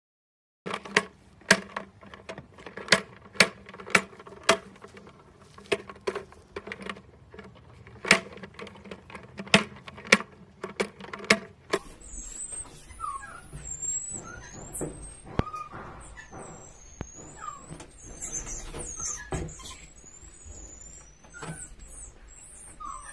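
An irregular series of sharp knocks and taps, about two a second, for some ten seconds. Then a marmoset, a common marmoset by its white ear tufts, makes a string of very high, wavering squeaky calls with a few lower chirps between them.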